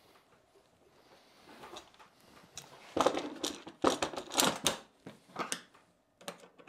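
Plastic clatter as the top cover of a DeWalt DW735 thickness planer is set back in place and fastened: quiet handling at first, then a run of sharp clicks and knocks about three to five seconds in, with a couple more near the end.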